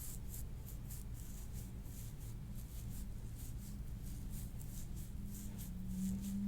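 Soft-tissue work on a back: quick, repeated rubbing and scraping strokes over the skin, several a second, done to loosen the fascia. A steady low hum runs underneath.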